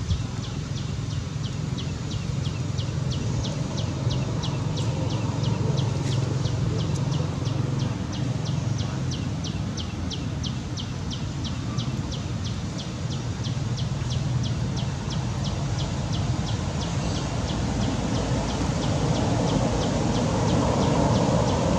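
An insect chirping in a steady rhythm of short, high pulses, about three a second, over a steady low rumble.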